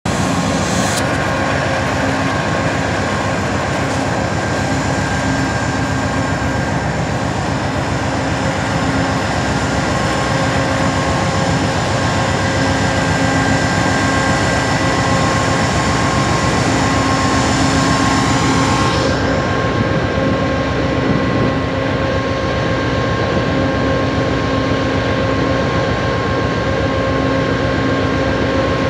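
Amtrak Southwest Chief train pulling away behind GE Genesis diesel locomotives: the engines run with a steady rumble and a high, steady whine over the constant noise of the moving train.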